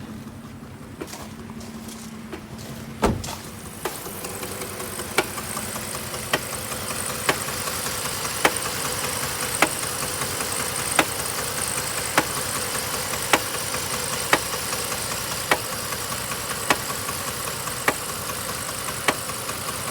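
3.7-liter V6 engine running with a sharp knock repeating about once a second, the knock its owner wants diagnosed. A loud thump comes about three seconds in, after which the engine sound grows louder.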